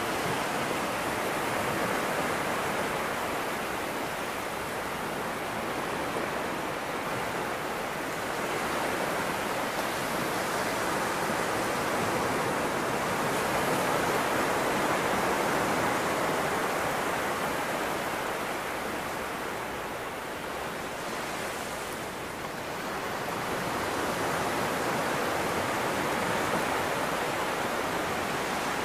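Small waves breaking and washing up over a flat sandy beach: a steady rush of surf that swells and eases slowly, with a dip about three-quarters of the way through.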